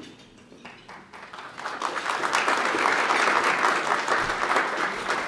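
Audience applauding, building up about a second and a half in and then holding steady.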